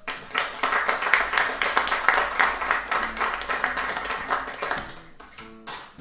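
Audience applauding, thinning out about five seconds in as the band's first sustained notes come in near the end.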